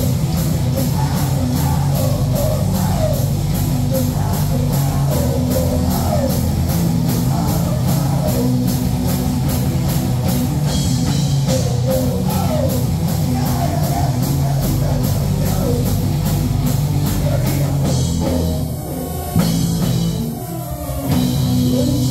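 Live rock band playing: electric guitars, keyboards and a drum kit with a steady beat, and a male singer. Near the end the band drops back for a couple of seconds, with one sharp hit, then comes back in full.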